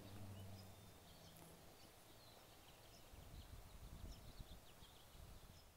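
Near silence: faint outdoor background with a few faint high chirps, and a low rumble from about halfway through.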